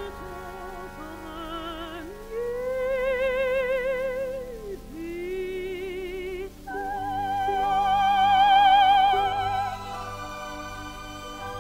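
Operatic soprano singing long held notes with vibrato over an orchestra. The loudest and highest note starts about seven seconds in and is held for about three seconds.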